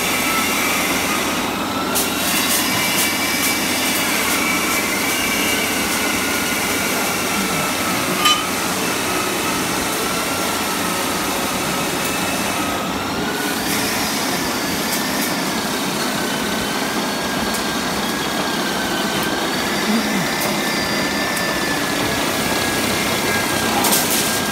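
Electric rebar cutting machine running steadily with a whine that wavers slightly in pitch. A few sharp clacks, the loudest about eight seconds in and another near the end, as the blade shears through the steel bars.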